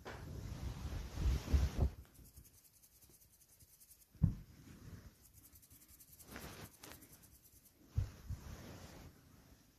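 Rustling and rubbing noise, loudest in the first two seconds, with two soft thumps, one about four seconds in and one about eight seconds in.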